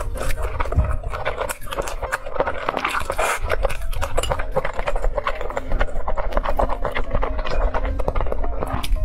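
Close-miked chewing of a mouthful of rice, a dense, fast run of moist mouth clicks.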